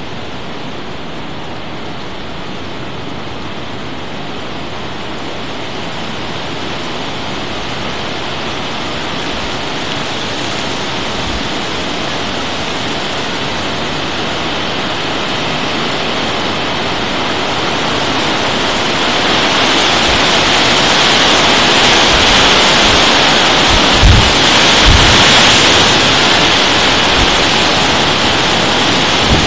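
Steady rain from a passing thunderstorm, building into a heavier downpour about two-thirds of the way through. A couple of short low thumps come near the end.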